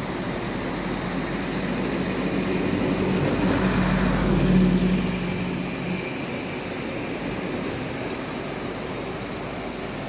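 Steady rush of river rapids over stones. An engine hum rises over it, is loudest about four to five seconds in, and fades out by about six seconds.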